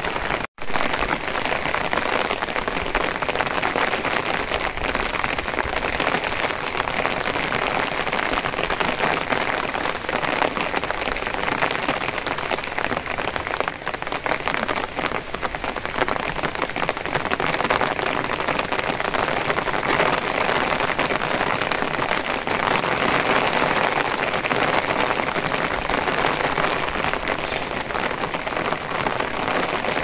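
Steady rain falling: an even, unbroken hiss of drops that cuts out for an instant about half a second in.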